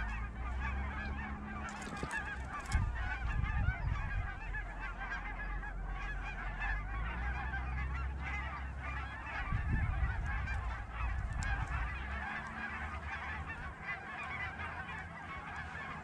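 A flock of geese honking and clucking all at once, a dense unbroken chatter of overlapping calls, over a low rumble.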